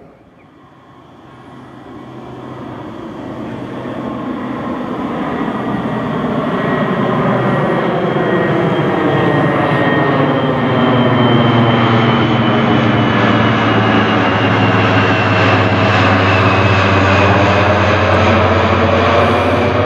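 The four turboprop engines of a Lockheed Martin HC-130J Combat King II drone as the aircraft approaches and passes overhead. The sound grows steadily louder over the first ten seconds, then stays loud. It is a steady low propeller hum with a high turbine whine on top.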